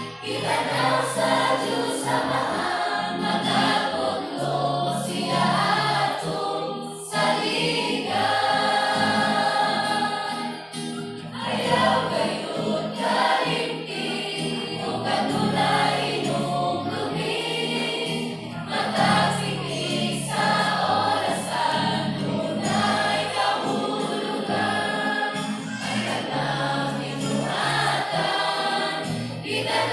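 Church youth choir of young women and children singing a Christian song together, phrase after phrase with short breaths between lines.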